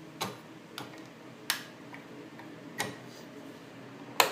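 Five sharp clicks, irregularly spaced over about four seconds, over a faint steady background; the last is the loudest.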